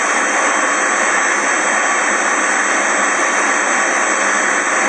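Kitchen extractor fan running with a steady, loud rushing noise.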